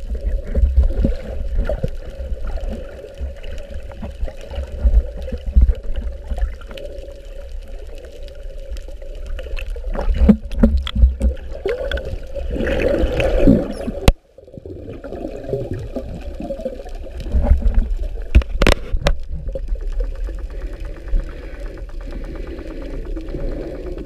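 Ship-deck background of a research vessel: a steady machinery hum over a low rumble, with scattered knocks and clanks and a busier stretch of clatter just before the sound cuts off abruptly about 14 seconds in and resumes.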